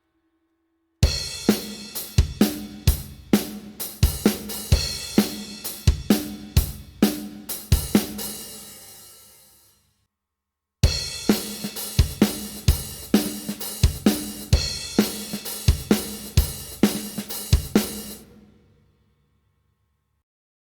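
Sampled acoustic drum kit from the Stigmatized Drummer Kontakt library playing two short grooves of kick, snare, hi-hat and cymbal hits. Each groove lasts about seven seconds and lets its cymbals ring out before a brief silence. The second groove starts about halfway through.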